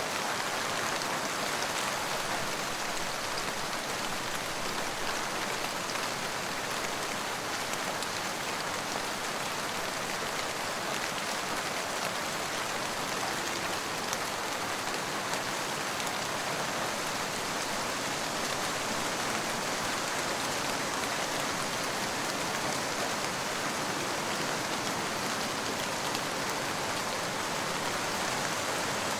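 Steady rain falling, a dense even hiss of drops with fine individual drop ticks and no change in intensity.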